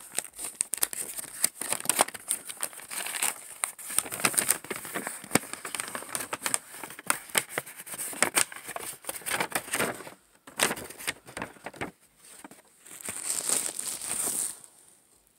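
Paper and packaging crinkling and rustling close to the microphone, with many quick handling clicks. It thins out about ten seconds in, with a last short stretch of rustling near the end.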